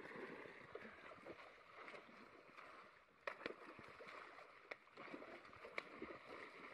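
Faint sloshing and splashing of muddy pond water churned by a person wading and grabbing at fish by hand, with a few sharp splashes.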